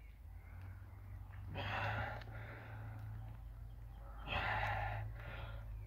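A man breathing out hard through the nose and mouth in two long, forceful blasts, about one and a half and four and a half seconds in, with a shorter one after the second, as he strains to tear a deck of playing cards in half with his hands.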